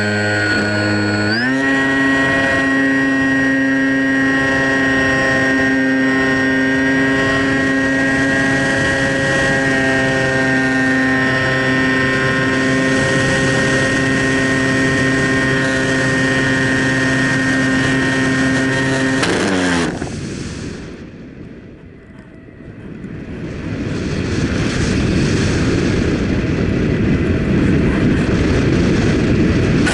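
DJI Phantom quadcopter's electric motors and propellers whining steadily in flight, stepping up in pitch about a second and a half in. About twenty seconds in the motor whine drops away abruptly and a rushing, wind-like noise takes over, fading and then swelling again: consistent with the craft losing power as a cracked motor mount fails and it comes down.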